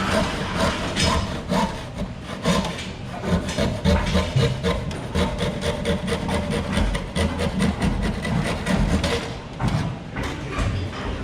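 A hand tool working wood, scraping and rubbing in quick repeated strokes.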